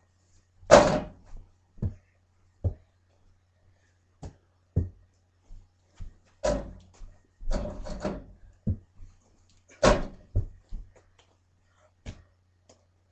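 A small ball striking an over-the-door mini basketball hoop's backboard and the wooden closet doors it hangs on: about a dozen irregular knocks and thuds, three of them much louder with a rattle of the doors.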